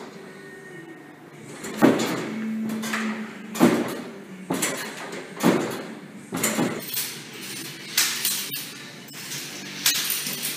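Gym apparatus knocking and clattering in a repeating rhythm, one sharp knock about every two seconds in time with exercise repetitions, each followed by a brief rattle.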